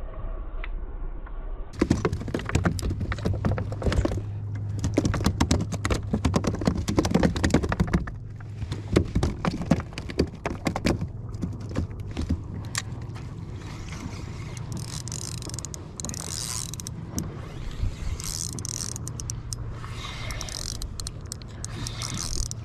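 Spinning reel being cranked fast with a dense run of clicking and rattling over a steady low hum, as a hooked Spanish mackerel is brought in to the kayak; the clatter thins out about halfway through, leaving lighter clicks and hissing.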